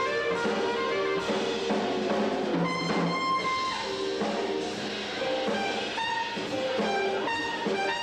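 Trumpet playing a jazz melody over live band accompaniment with drum kit, holding one longer note about three seconds in.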